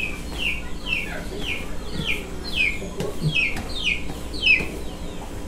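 Chicken peeping in a steady run of short, high, falling peeps, about two a second.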